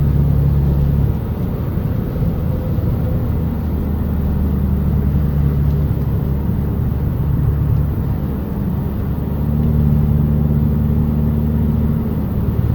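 Steady road and engine drone inside a moving car's cabin, a low hum that fades and swells a few times as the car coasts down a steep grade.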